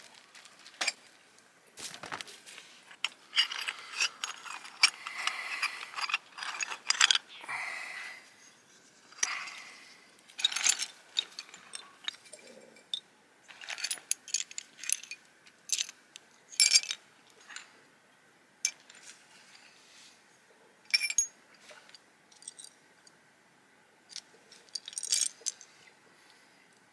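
Rustling of a cloth drawstring pouch and irregular clicking and clinking of small bone and stone pieces being handled and knocked together.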